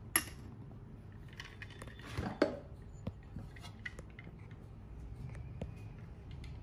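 Stainless steel cobbler shaker being closed and handled: a sharp metal click as the strainer top is pressed on, a couple of knocks about two seconds in, then scattered light clinks.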